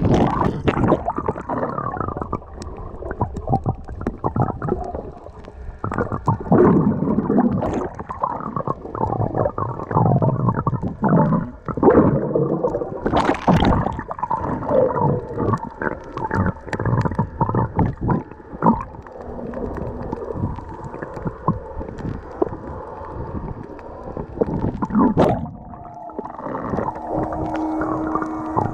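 Muffled underwater sound heard through a camera's waterproof housing: irregular sloshing and gurgling surges of water with scattered clicks and knocks, the sharpest about halfway through and again near the end.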